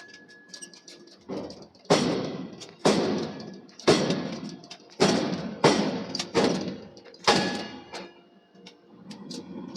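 Heavy hammer blows on steel being forged: about seven loud strikes roughly a second apart, each dying away in a short ring, then a few lighter knocks near the end.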